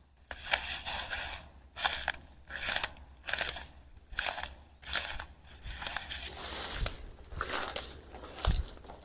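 Bare footsteps crunching through dry leaf litter at a walking pace, about ten steps with short quiet gaps between them.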